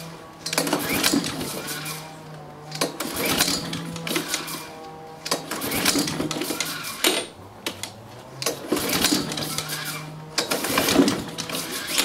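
Recoil starter of a Honda Izy petrol lawnmower pulled about five times, each pull a whirring crank of roughly a second and a half. The engine turns over but never fires, not even a cough, a sign that no fuel is reaching the carburettor or there is no spark.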